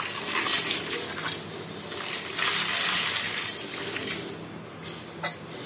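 Roasted black peppercorns poured from a pan into a steel bowl of dried red chillies, rattling and clinking against the metal in two pours. A single sharp click comes near the end.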